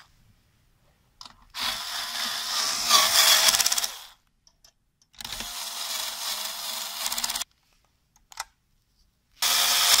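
Cordless electric screwdriver whirring in three runs of about two seconds each, driving in the screws of the CPU heatsink and fan assembly.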